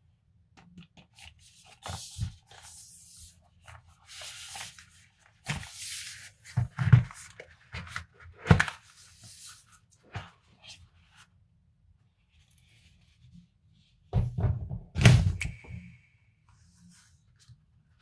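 A cardboard chocolate box being handled and opened by hand: scraping and sliding of the cardboard, with several dull thunks and knocks as it is set down and tapped. The loudest thunks come in a cluster about three-quarters of the way through.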